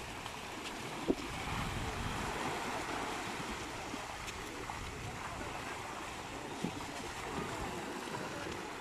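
Small waves washing up on a sandy beach, with wind on the microphone. A short sharp knock about a second in.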